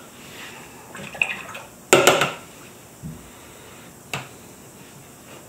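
A few short knocks, clinks and rustles of things being handled on a worktable, the loudest about two seconds in.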